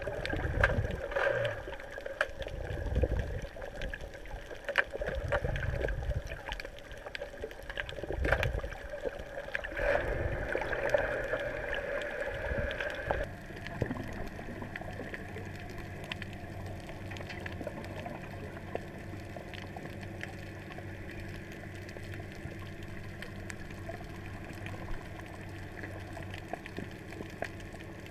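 Underwater sound recorded through a camera housing: irregular sloshing and gurgling surges of water and bubbles as a snorkeler dives. About 13 seconds in it cuts abruptly to a steadier, quieter low underwater hum.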